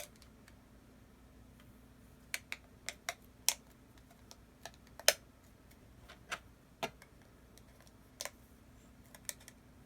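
Plastic building bricks and plates clicking as they are handled and pressed together: about a dozen short, sharp clicks at irregular intervals.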